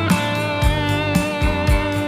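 Background music: guitar-led instrumental with a steady beat, roughly two drum hits a second.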